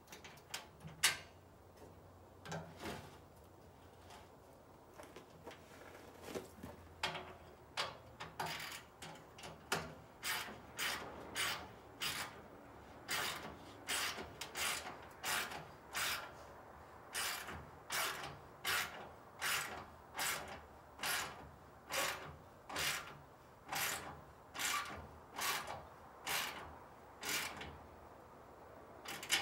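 Ratchet wrench worked back and forth to tighten a nut on a bolt: a short rasping run of clicks on each backswing. A few scattered strokes at first, then a steady run of about one and a half strokes a second from about ten seconds in.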